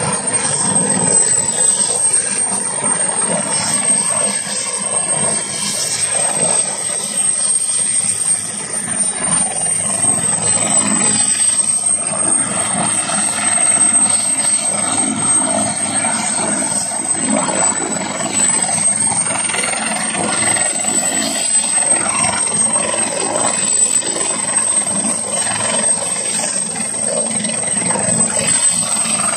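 Military helicopter running on the ground with its rotor turning: a steady rush of rotor and engine noise under a high turbine whine that wavers slightly in pitch.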